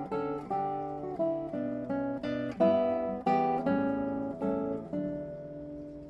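Acoustic guitar music: plucked chords about two a second, the last one ringing out and fading near the end.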